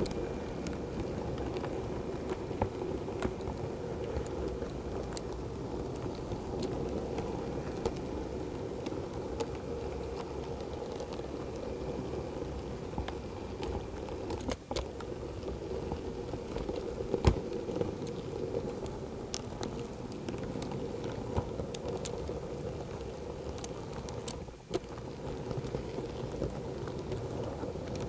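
Model Class 08 shunter running along the layout's track, heard from on board: a steady motor hum with irregular clicks and ticks of the wheels over rail joints and points, a few sharper clicks standing out.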